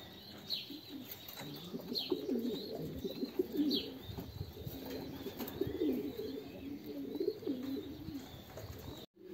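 Racing pigeons cooing: a run of low, warbling coos, with a few short, high, falling chirps from other birds.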